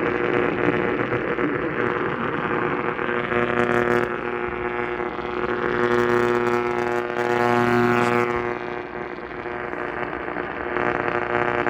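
Radio receiver noise: a hiss with a steady buzzing drone, a low hum with many overtones, which swells in the middle and then eases.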